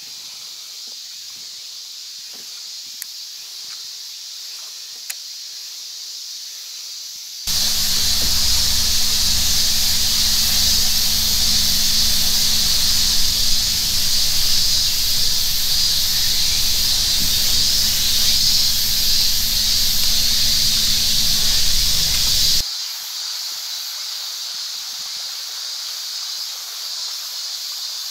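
Steady high-pitched chorus of cicadas. From about seven seconds in until about twenty-two seconds it is much louder, with a low steady hum underneath, and this louder part starts and stops abruptly.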